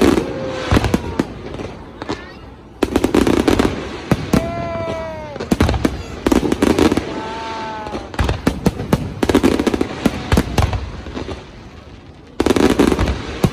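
Fireworks bursting overhead: loud clusters of pops and crackles about every three seconds, each with a deep boom. Two long, slightly falling tones sound between the bursts in the middle.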